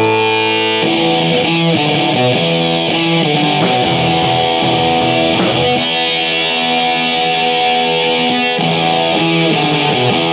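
Live rock band playing electric guitars and drums, with no singing. A held guitar chord breaks into a run of changing notes about a second in, and two cymbal crashes ring out around the middle.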